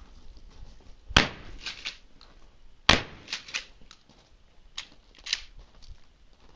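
Two gunshots about a second and three-quarters apart, each followed by a few sharper, lighter clicks and knocks, with two more clicks a couple of seconds later.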